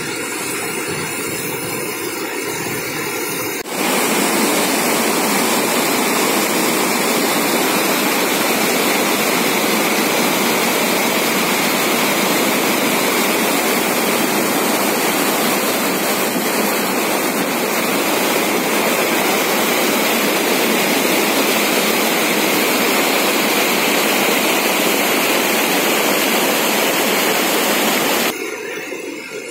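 Floodwater from an overflowing lake rushing over its concrete spillway weir: a quieter rush at first, then a loud, steady rush of water that cuts in abruptly about four seconds in and drops away near the end.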